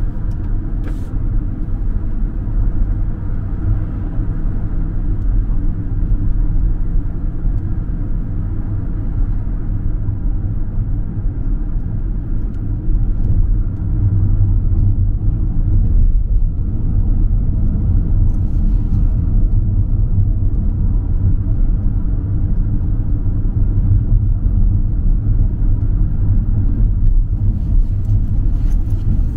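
Car cabin noise while driving: a steady low rumble of engine and tyres on the road, a little louder from about halfway through.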